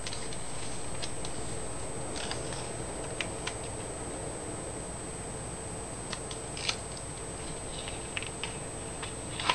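A sheet of printer paper being handled on a desk: scattered soft rustles and light ticks over a steady background hum.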